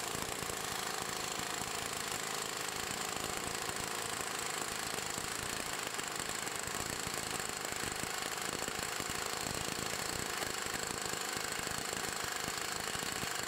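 Astro Onyx pneumatic palm impact wrench hammering continuously on a torque dyno, a steady rapid rattle of impact blows held at 150 psi line pressure for a sustained run.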